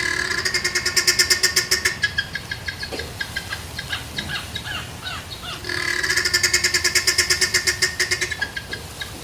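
A rapid pulsed animal call, about eight pulses a second, breaks off about two seconds in. Short falling bird chirps fill the gap, and the pulsed call returns near six seconds in, stopping a second before the end.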